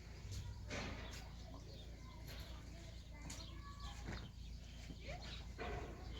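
Scattered light knocks and clicks, with a few short bird-like chirps and a steady low hum underneath.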